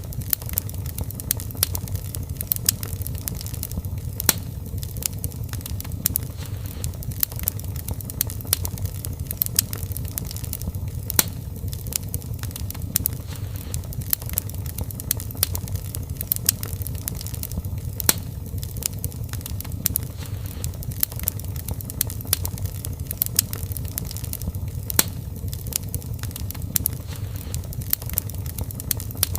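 Wood fire burning in a fireplace: frequent irregular sharp crackles and pops over a steady low rumble of the flames.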